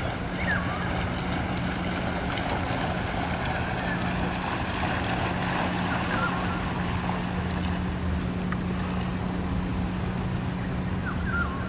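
Steady outdoor rush of wind and moving water with a constant low hum, like a distant motor, underneath. A few short high chirps stand out briefly near the start, around the middle and near the end.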